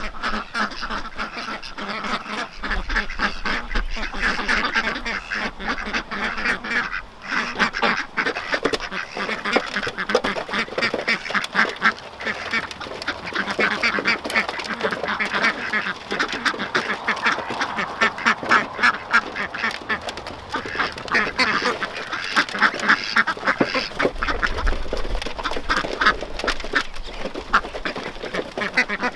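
A flock of domestic ducks quacking loudly and continuously, many birds calling over one another in a fast, dense chatter.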